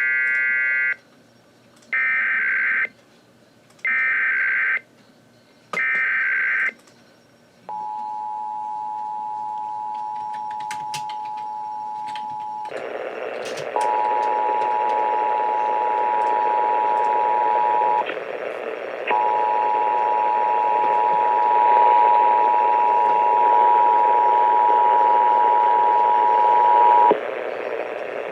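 Emergency Alert System tones received over the radio for a required monthly test. First come four short bursts of screechy SAME digital header data. Then the two-tone EAS attention signal (853 and 960 Hz) holds steady for about twenty seconds. Radio hiss comes in about halfway through, and the tone drops out briefly twice before stopping near the end.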